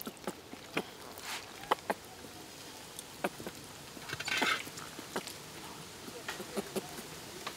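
Scattered wet clicks and ticks of hands pulling fat and entrails out of a large snake's opened body, with a short noisy rasp about four seconds in.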